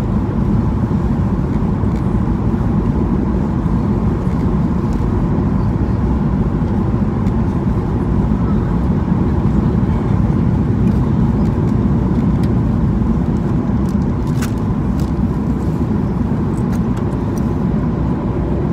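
Boeing 737-800 cabin noise at a window seat on final approach: a steady low rumble of airflow and the CFM56 engines, with a faint steady whine.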